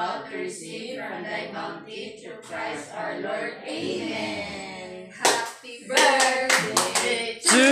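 Several people talking at once, then from about five seconds in a group clapping loudly and steadily, with voices starting to sing at the very end.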